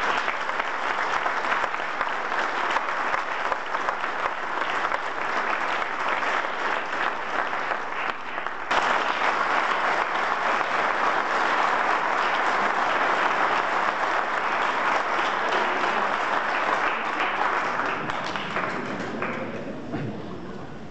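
Audience applauding, a dense steady clapping that grows louder about nine seconds in and dies down near the end.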